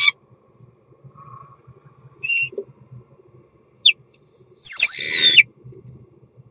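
Male common starling singing its courtship song inside a wooden nest box: a short clipped note a couple of seconds in, then a long whistle sliding down in pitch that runs straight into a loud, harsh, scratchy rattle near the end.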